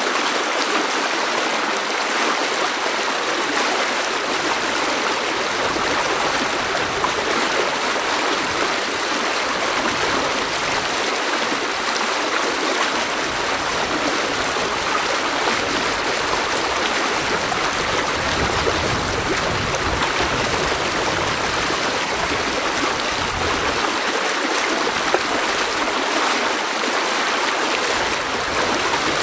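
Small, fast-flowing stream rushing through a narrow grassy channel: a steady rush of water.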